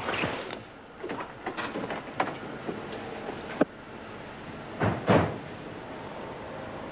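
Car doors being opened and shut: a string of short clicks and knocks, then two heavier door slams close together about five seconds in.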